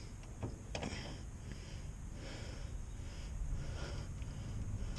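A man breathing and sniffing in short, faint puffs over a low steady hiss.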